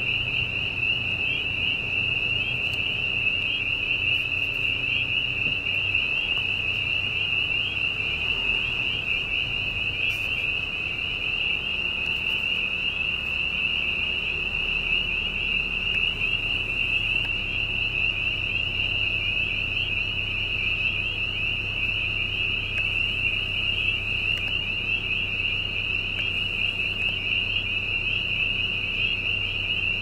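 A dense chorus of spring peepers, many high peeping calls overlapping without pause, over a low steady drone from a gas-well drilling rig.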